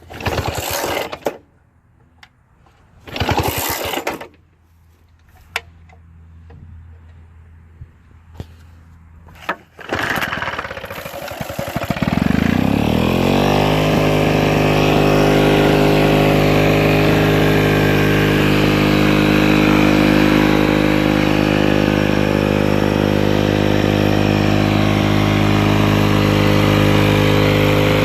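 Lawn-Boy 5003 mower's two-stroke C-series engine being recoil-started while still warm. Two pulls in the first few seconds do not catch. A third pull starts it about ten seconds in, its pitch rises, and it then runs steadily at full throttle.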